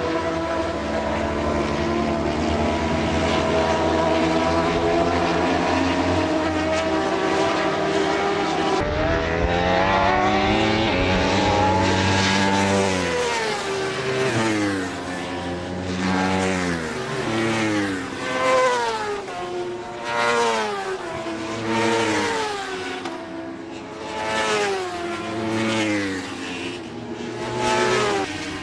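Racing motorcycle engine at full race pace: a steady high engine note for about the first nine seconds, then, after a sudden change, the pitch repeatedly rising and falling as the engine revs up and drops back through gear changes and braking.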